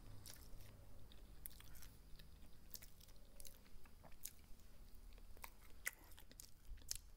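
A person chewing food, with faint, irregular crunchy clicks.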